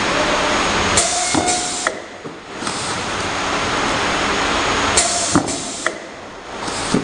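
Carton side-labeling machine running: a steady hiss-like machine noise, with two groups of sharp clicks and knocks about a second in and about five seconds in, each followed by a brief dip in the noise.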